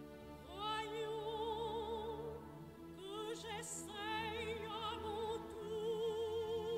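Background music: a high operatic voice holding long notes with wide vibrato over orchestral accompaniment, a new phrase starting about halfway through.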